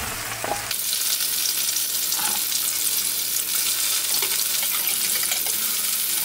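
Hamburger patties sizzling in oil in a frying pan over high heat, the hiss growing loud about half a second in. A metal spatula gives a few light scrapes and taps against the pan as the patties are turned.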